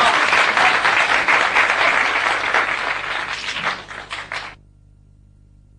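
Audience applauding, thinning out and then cut off abruptly about four and a half seconds in, leaving only a faint low hum.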